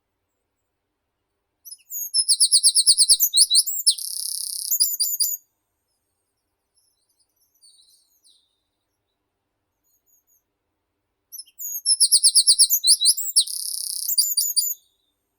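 A songbird singing the same loud, high song phrase twice, about ten seconds apart. Each phrase is a fast run of repeated notes, then a buzzy stretch, then a few closing notes.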